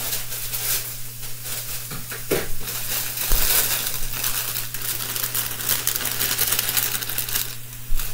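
Plastic package of baby spinach crinkling as it is handled and emptied into a skillet of frying shrimp, over the pan's steady sizzle. A light knock comes about two seconds in.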